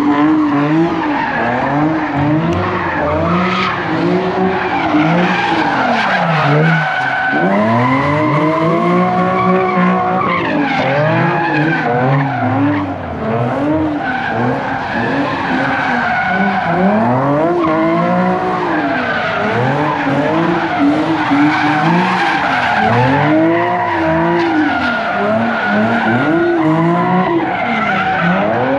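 Car engine revving up and down over and over, with the tires screeching as the car spins donuts.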